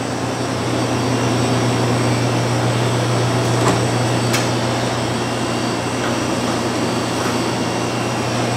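Steady, loud whir and low hum of commercial kitchen fans close to the oven. A couple of light clicks come a few seconds in, as the oven door is opened and the tart pan goes onto the rack.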